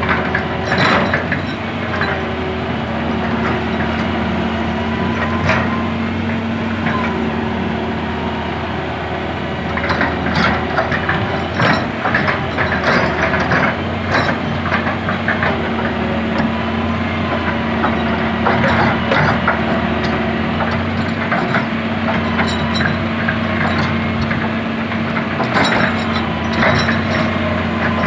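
Crawler excavator's diesel engine running steadily, with a hydraulic whine rising and falling as the boom and bucket move. Scattered clusters of knocks and cracks come as the bucket teeth press and shift the logs of the bridge.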